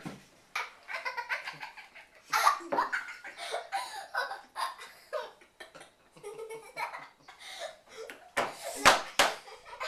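Several people laughing in short, broken bursts, with a couple of sharp clicks near the end.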